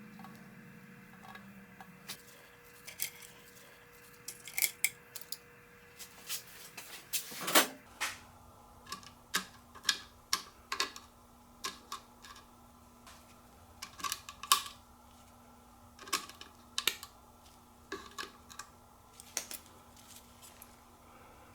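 Scattered light metallic clicks and clinks of hand tools and steel engine parts being handled while an engine is taken apart. About seven seconds in there is one louder sound that falls in pitch.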